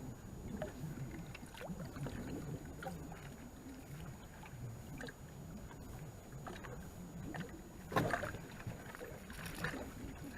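Handling noise aboard a small fishing boat on the water: a low, restless sloshing with scattered light clicks and knocks, and one louder knock about eight seconds in.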